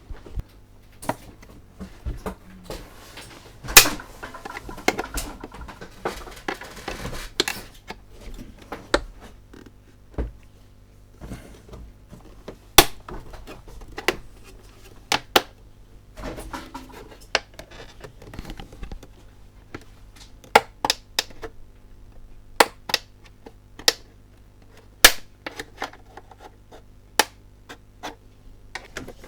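Plastic casing of a Lavazza coffee machine being prised apart by hand: irregular sharp clicks and snaps as its hidden clips are wiggled loose, with plastic scraping against plastic for a few seconds early on.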